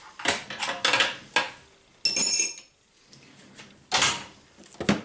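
Metal hand ratchets being handled, clattering and clinking against metal, with one sharp clink about two seconds in that rings briefly.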